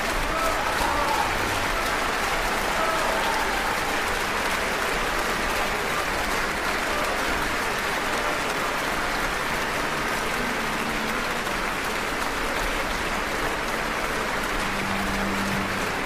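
Audience applauding steadily, a dense, even clatter of many hands clapping at a constant level.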